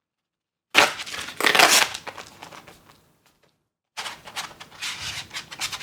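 Plastic packaging crinkling and crackling as it is opened and handled, in two bouts: a loud one about a second in, then another from about four seconds.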